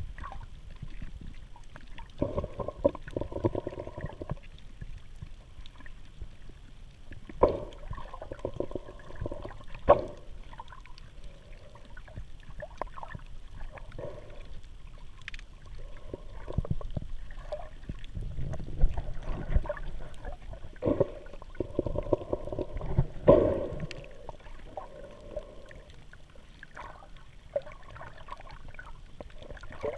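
Muffled water sloshing and swishing heard underwater, coming in irregular bursts one to three seconds long, with faint crackling clicks throughout.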